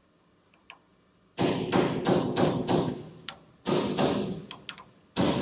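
Hammer blows on a seal and bearing race driver, tapping a new axle seal into the end of a Ford 9-inch rear axle housing until it seats. After about a second and a half of quiet, a run of sharp, ringing knocks comes about three a second, with a short pause in the middle.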